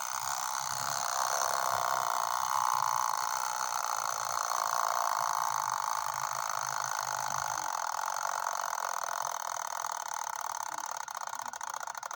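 Rusty Slava mechanical alarm clock ringing: its hammer strikes the bell in a fast, continuous buzz with a weird tone. The clock is kind of broken.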